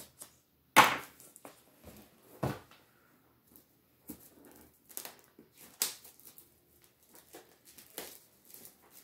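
Shrink-wrapped cardboard box set being cut open and unwrapped with a box cutter: scattered plastic crackles and scrapes with knocks of the box, the loudest a sharp crack about a second in and another about two and a half seconds in.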